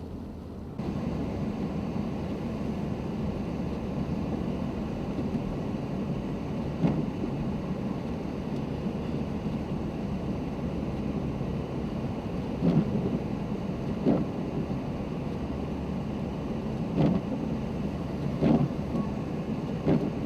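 Steady low rumble of a four-wheel-drive vehicle driving on a snow-covered road, heard from inside the cabin. It gets louder about a second in, and a handful of short dull thumps come through it.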